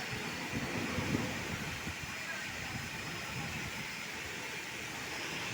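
Steady background noise with low rumbling, like passing traffic, and faint indistinct voices.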